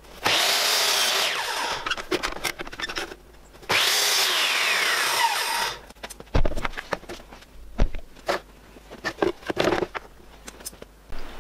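Mitre saw making two 45-degree cuts through a thin strip of wood, each lasting two to three seconds, with the motor's whine falling as the blade spins down after each cut. A few light knocks and taps follow.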